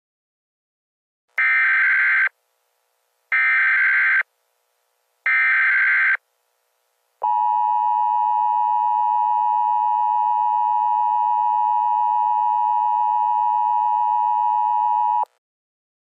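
Emergency Alert System tones: three short buzzy data bursts of the SAME header, about two seconds apart, then the steady two-tone attention signal held for about eight seconds before cutting off abruptly. Together they open an emergency alert broadcast, here a flash flood warning.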